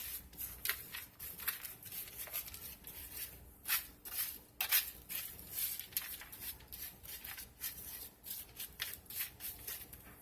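A spoon stirring and scraping rolled oats coated in honey and coconut oil, an irregular run of short scrapes and rustles several times a second.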